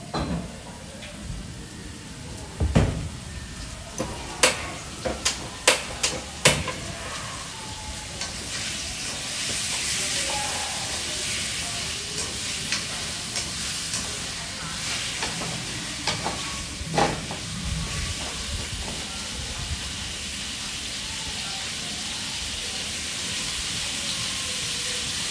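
Food frying in a pan, stirred with long cooking chopsticks: a run of sharp knocks a few seconds in, then a steady sizzle that builds from about eight seconds in, with small ticks of the chopsticks against the pan.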